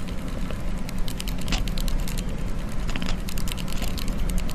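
Cat chattering: rapid dry clicks with a few short high chirps, over a steady low hum.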